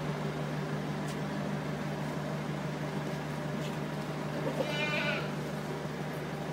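Goat bleating once, a high-pitched call about five seconds in, over a steady low hum.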